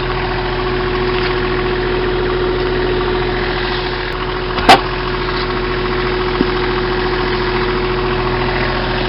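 Mini-excavator engine running steadily at idle, with a steady hum throughout. A single sharp knock or clank about halfway through.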